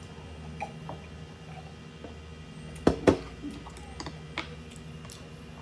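Mealtime tableware sounds: scattered light clicks, with two sharp knocks a moment apart about three seconds in, over a steady low hum.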